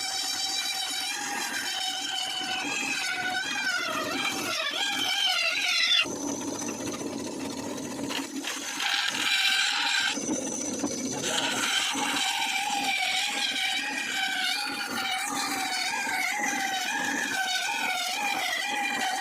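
Electric drill spinning a grinding stone against bandsaw blade teeth to sharpen them: a motor whine whose pitch wavers for the first several seconds as it is loaded, then runs steadily, with a few abrupt shifts in the sound along the way.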